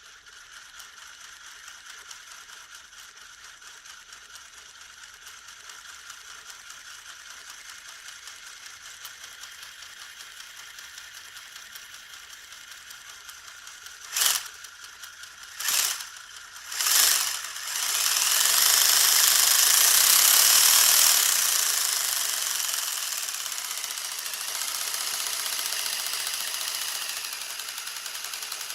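Lego truck's motor and plastic gear train running with the fake V8 engine's pistons, making a fast, steady mechanical rattle. About 14 to 17 seconds in come three short loud bursts, and then the rattle grows louder for a few seconds before easing back a little.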